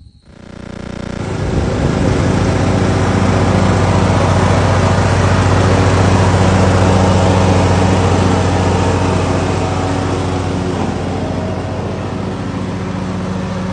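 John Deere riding lawn tractor engine running steadily. The sound comes up over the first second and a half, then holds as an even drone, easing a little near the end.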